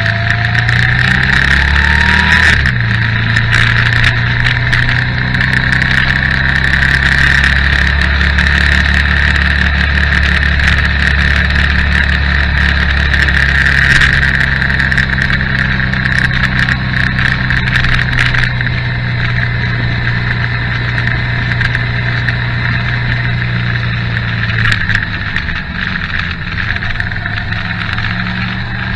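Motorcycle engine running under way, rising in pitch for the first couple of seconds and then dropping at a gear change about two and a half seconds in, mixed with steady wind noise.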